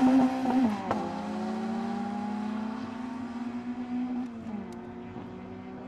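Drag-racing hatchback engines at full throttle, pulling away down the strip. The engine note climbs, drops abruptly at a gear change under a second in, climbs again and drops at another change about four and a half seconds in, fading with distance. There is a sharp crack just under a second in.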